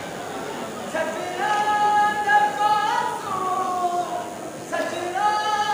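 A single voice singing unaccompanied in long, drawn-out held notes that slide between pitches, one phrase starting about a second in and a second phrase near the end.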